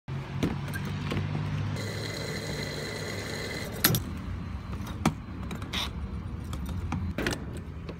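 Gas pump nozzle in a car's filler neck: a steady low pump hum, with a high whine of fuel flowing from about two to four seconds in. Then a sharp click just before four seconds and two more sharp clicks later as the nozzle is worked.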